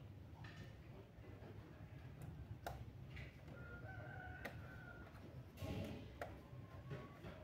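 A few sharp plastic clicks and taps as a laptop keyboard and its plastic case are handled, faint over a low hum. About halfway through a rooster crows faintly.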